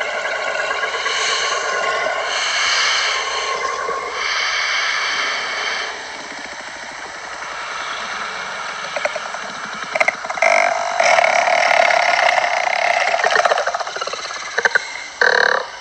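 Creature sound effect: a continuous rough, raspy, throaty noise that grows louder and harsher about two-thirds of the way in, with a few sharp clicks.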